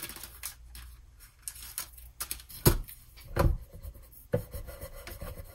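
Hands at a wet-erase desktop whiteboard: a few sharp clicks and taps, then a fingertip rubbing wet-erase marker ink to wipe it off dry, with a steady squeaky tone over about the last second.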